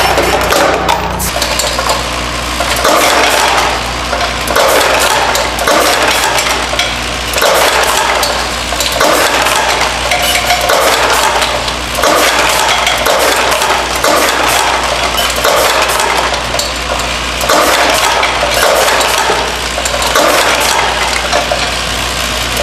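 Vibratory bowl feeder of a Delta Counter LCM22 piece-counting machine running full of brass fittings: a continuous metallic clatter and jingle of the fittings shaking along the bowl's spiral track, over a steady low hum. The clatter swells and eases in regular surges about every second and a half.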